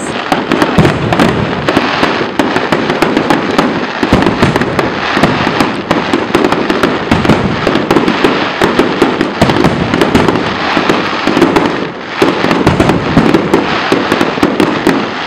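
Fireworks display: a dense, continuous crackle of many small bursts and bangs, with a brief lull about twelve seconds in.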